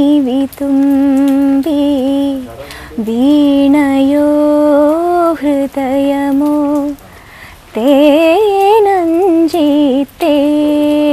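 A woman singing a slow melody unaccompanied, holding long notes with vibrato and ornamented turns, pausing twice briefly between phrases.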